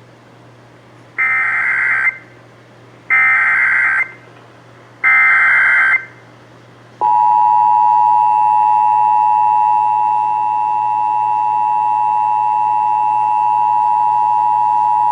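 Emergency Alert System SAME header: three short bursts of warbling data tones, each about a second long, followed by the EAS two-tone attention signal (853 and 960 Hz together) held steadily for about eight seconds. Together they announce an incoming emergency alert, here a severe thunderstorm warning.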